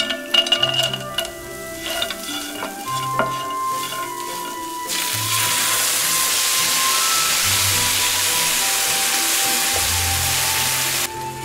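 A wooden spoon stirs and scrapes shallots, spices and cashews frying in a non-stick pan, with small clicks and a light sizzle. About five seconds in, tomatoes hit the hot pan and it breaks into a loud, steady sizzle, which cuts off abruptly near the end. Soft background music plays underneath.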